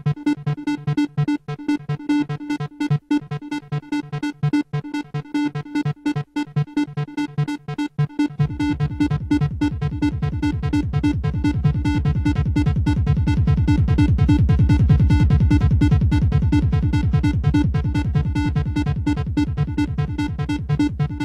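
Trance music: a fast, repeating synthesizer pattern, joined about eight seconds in by a deep sustained synth bass that swells and then eases slightly.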